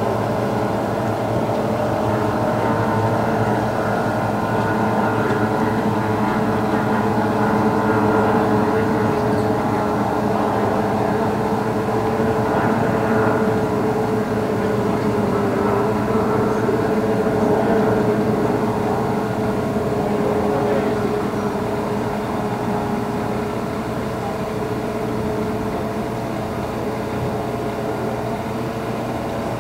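Several racing outboard hydroplanes running flat out together, their high-revving two-stroke outboard engines making a steady, layered drone that eases off a little in the last third as the pack moves away.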